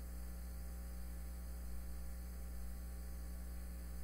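Faint, steady electrical mains hum with a buzzy ladder of overtones, unchanging throughout.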